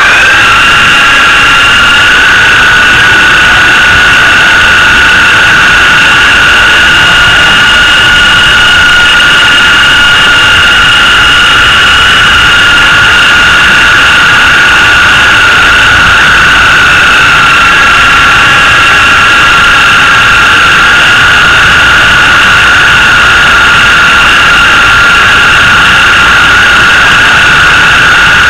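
Small RC helicopter's motor and rotor running with a steady, high whine and a rushing hiss. It is heard very loud and close, from a camera mounted on the helicopter itself.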